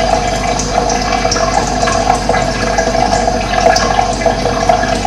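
Steady running water, a stream flowing and bubbling, with a few short high bird chirps scattered over it.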